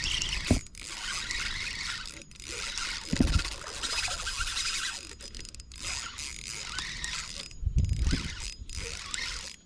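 Fishing reel being cranked with the drag slipping in a rasping, squealing whir, broken by several short pauses, while a hooked Mayan cichlid is played in. A couple of short low thumps are heard along with it.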